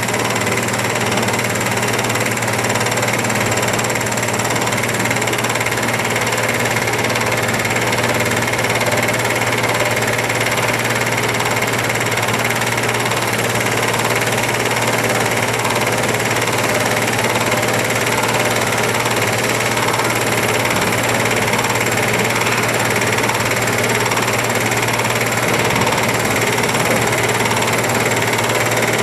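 Diesel engine of a Liebherr R 964B crawler excavator running steadily as it digs and loads a tipper truck, a constant engine drone with no let-up.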